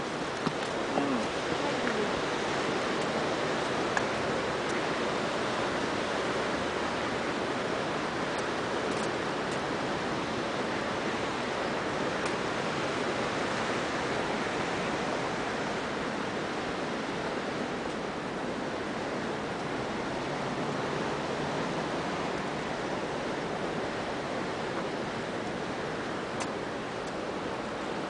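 Sea surf rushing steadily: an even, unbroken noise of waves on the shore.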